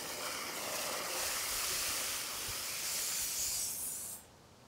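Water wand on a garden hose jetting water into mud under a sidewalk, a steady hiss of spray, washing out soil to bore a path for a pipe. The hiss cuts off suddenly about four seconds in.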